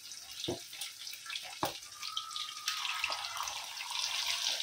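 Masala-coated Indian mackerel (bangda) shallow-frying in hot oil, a steady sizzle with crackling and two sharp pops in the first couple of seconds. About three seconds in the sizzle gets louder as another fish is laid into the oil.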